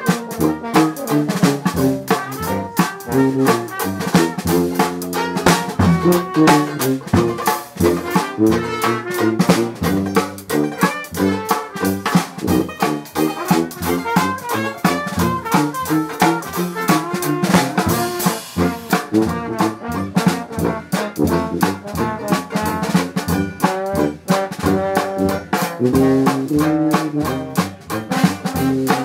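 Live Dixieland jazz band playing: a trombone plays over a strummed banjo that keeps a steady beat.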